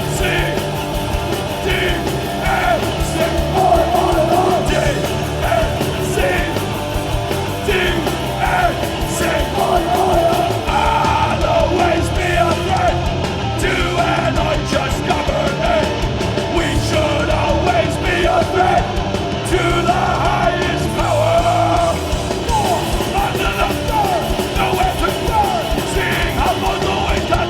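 Hardcore punk band playing live, with loud shouted vocals over the band throughout.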